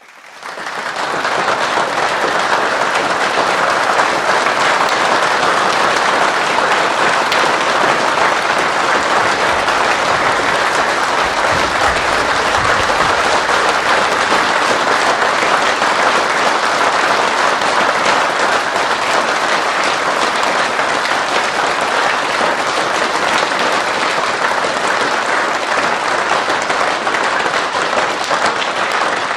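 Crowd applauding: many people clapping at once in a dense, steady ovation that swells up from silence within the first second and keeps going.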